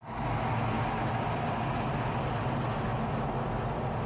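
Single-turbofan jet engine of a KAI FA-50PH fighter-trainer running steadily on the runway, heard from inside the cockpit as an even drone with a low hum.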